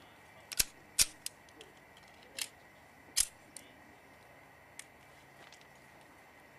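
Several sharp metallic clicks and knocks in the first few seconds, then one faint tick: a semi-automatic pistol being handled and set down on a wooden table.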